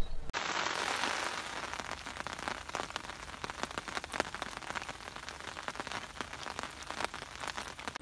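Rain falling on a surface: a dense, crackling hiss of many fine drops that starts abruptly and eases slightly after the first second.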